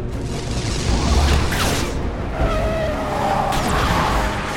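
Black GMC SUVs skidding hard on pavement, engines running and tyres screeching. The screech is strongest in the second half, over a low rumble that peaks about a second in.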